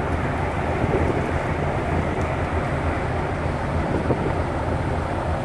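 Steady low drone of the coastal ship MS Lofoten under way at sea, heard on its open deck, mixed with wind rushing over the microphone.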